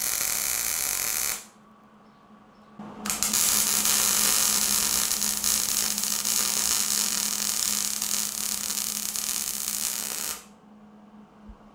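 Wire-feed (MIG) welding arc on steel square tubing, a steady sizzling hiss. It runs for about a second and a half, stops briefly, then runs again for about seven seconds before cutting off. A low steady hum runs underneath.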